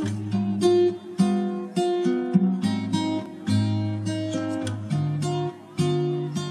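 Background music: a guitar strumming chords in a steady rhythm.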